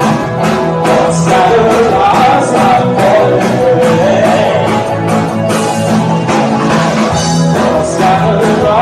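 Rock band playing live: drum kit keeping a steady beat under electric guitars and bass guitar, with a male lead vocal singing over it.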